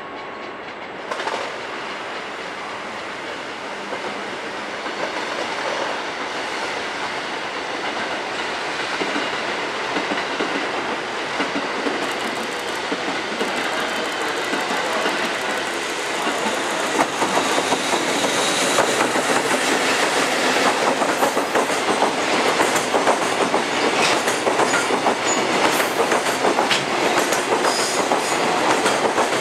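JR Freight EF65 electric locomotive hauling a container freight train, approaching and growing steadily louder. Then the loaded container wagons roll past close by, with a dense clickety-clack of their wheels over the rail joints from a little past halfway.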